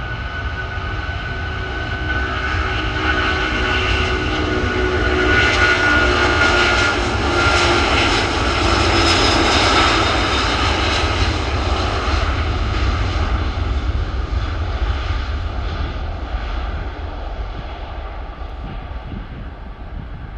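Four jet engines of a Boeing 747-400 at high thrust passing by, with a deep rumble and a high fan whine. The sound swells to its loudest about halfway through, then fades away.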